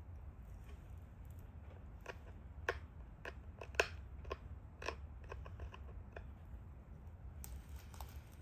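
Pressure flaking a stone Dalton point: a string of small, sharp, irregularly spaced clicks and snaps as flakes pop off the edge, the loudest nearly four seconds in.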